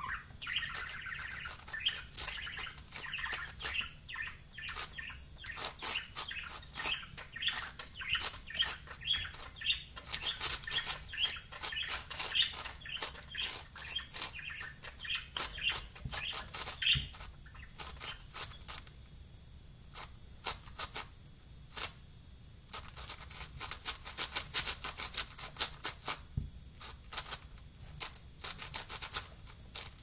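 Plastic 7x7 Rubik's cube being turned fast, its layers clicking and clacking in quick irregular runs. The turning thins out for a few seconds past the middle, then picks up again.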